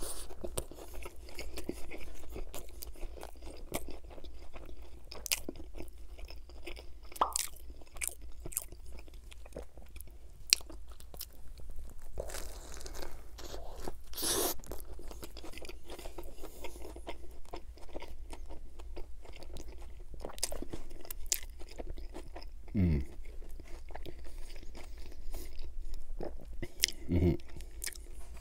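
Close-miked biting and chewing of a Wendy's Dave's Bacon Classic burger with bacon, lettuce, tomato, pickles, onion, ketchup and mayo: wet smacking clicks and soft crunches. Two brief low falling hums from the eater near the end.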